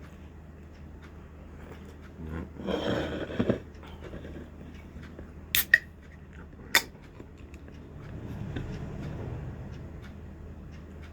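Small handling noises over a steady low hum: a rustle, then a few sharp clicks, then a softer rustle.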